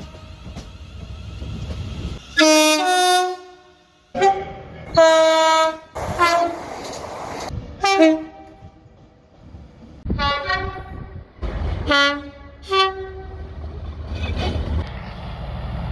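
Train horns sounding in a rapid series of about eight short blasts from different trains, several of them two-tone, stepping between a high and a low note, over the low rumble of the trains.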